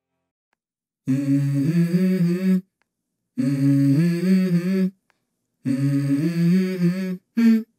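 Background music: a wordless a cappella vocal, a hummed phrase of held, stepping notes sung three times with short pauses between.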